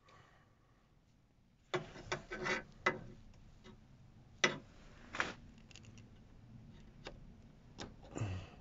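Irregular light clicks, taps and rustling of hands and parts being handled, starting about two seconds in, with about a dozen separate sharp clicks spread unevenly.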